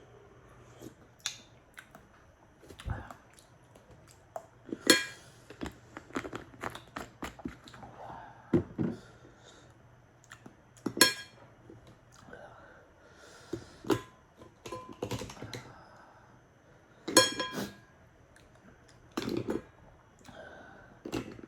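Eating sounds from an oyster meal: sharp clicks and clinks of oyster shells and utensils against dishes, with a few louder ringing knocks and softer mouth noises in between.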